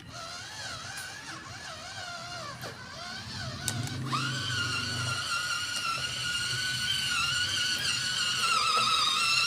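Electric motor and geared drivetrain of an MN99S RC off-road truck whining under load, the pitch wavering up and down with throttle for the first few seconds, then holding steadier and growing louder from about four seconds in.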